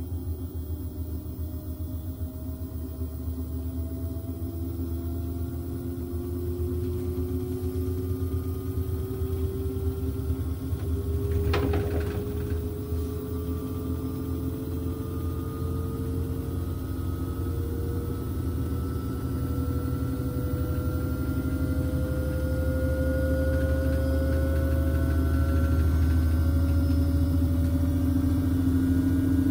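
Front-loading washing machine drum spinning in its spin cycle, with a steady motor hum and a whine that slowly rises in pitch as the drum speeds up. One brief knock sounds about twelve seconds in.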